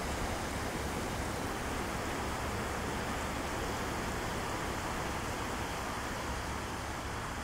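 Ocean surf breaking and washing ashore, a steady wash of noise with a low rumble underneath.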